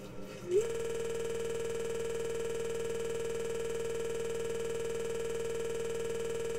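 A steady electronic tone that slides up briefly about half a second in, then holds one unchanging pitch.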